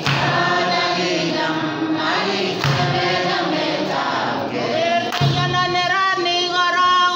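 A group of voices singing a song together, choir-style, with held notes.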